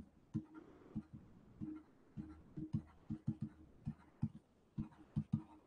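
Stylus tapping on a pen tablet during handwriting: an irregular run of about fifteen light clicks.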